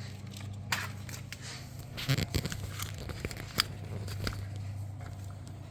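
Hands working on a riding mower's throttle cable and its fittings: several sharp clicks and light rustling, a cluster of them about two seconds in, over a steady low hum.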